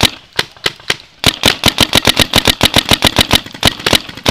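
Paintball marker firing close to the microphone: a few single shots, then a rapid string of about nine shots a second for nearly three seconds.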